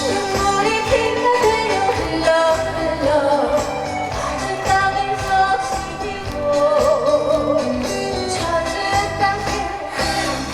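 Trot song performed live: a woman singing over a backing track with a steady drum beat.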